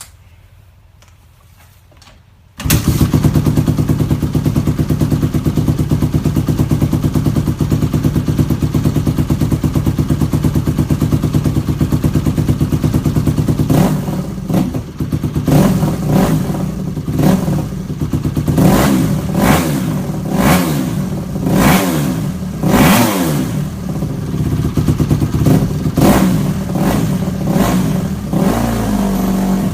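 A 2007 Honda CRF150R's single-cylinder four-stroke engine with a Big Gun Evo R exhaust fires up after a couple of seconds of quiet and runs at a steady idle. From about halfway it is revved in repeated quick blips, its pitch rising and falling with each. Super loud.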